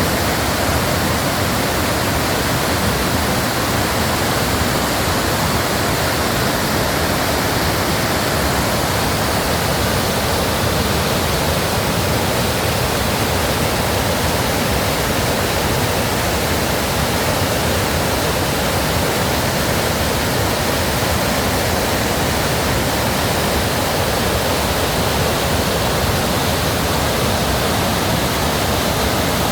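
Rushing stream water, a loud, steady hiss that does not let up.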